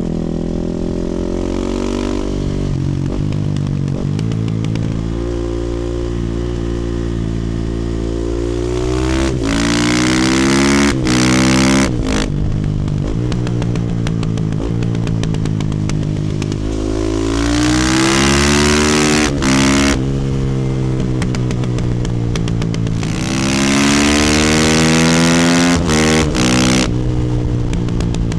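A 2018 Husqvarna FE450 supermoto's single-cylinder four-stroke engine running through an Akrapovic exhaust. It holds fairly steady revs at first, then accelerates hard three times, the pitch climbing with brief cuts at the gear changes.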